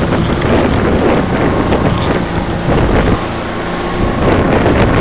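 Wind buffeting the microphone on a moving motorboat, over the wash of choppy water and the steady drone of the outboard motor underneath. The heavy rumble eases for about a second a little past the middle.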